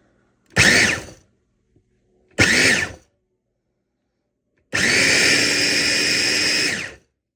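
Qinkada 400 W electric food processor running on its second speed with its double blades chopping breadcrumbs and oatmeal. It is pulsed in three runs, two short ones and then a longer one of about two seconds, each spinning up and winding down.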